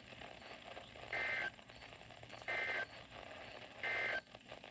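Emergency Alert System (SAME) End-of-Message data bursts: three short, shrill, buzzy two-tone digital bursts about a second and a half apart, marking the end of the warning. Faint radio hiss lies between them.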